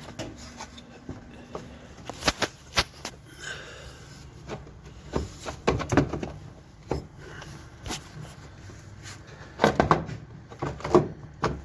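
Irregular clunks and knocks from hands working on a washing machine, coming in three clusters: about two seconds in, around five to six seconds, and near the end.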